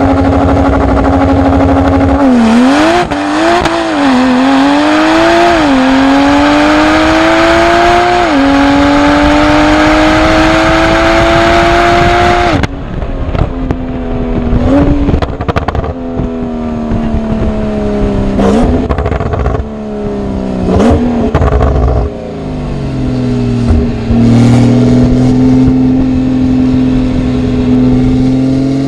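Porsche 991 Turbo S's twin-turbo flat-six held at steady high revs on launch control, then launching about two seconds in and pulling hard through quick upshifts, each a dip and climb in pitch, to one long rising pull. About halfway it cuts to a quieter stretch where the revs fall with several sharp throttle-blip downshifts, then settle into a steady drone near the end.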